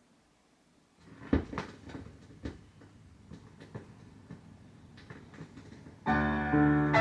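Turntable stylus set down on a vinyl record: a sharp click about a second in, then scattered pops and crackle from the lead-in groove. About six seconds in, the record's music starts with keyboard chords.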